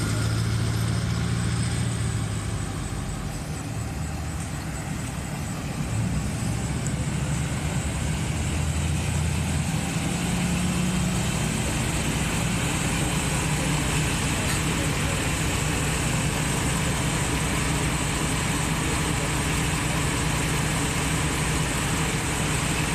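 A vehicle engine idling, a steady low hum.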